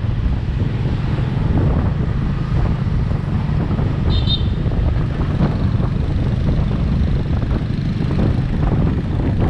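Wind rushing over the microphone and the low rumble of motor scooters in street traffic, heard from the back of a moving scooter. A brief high-pitched beep sounds about four seconds in.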